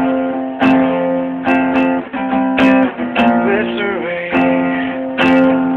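Acoustic guitar strumming chords in a steady rhythm, a fresh stroke about every half second ringing on between strokes.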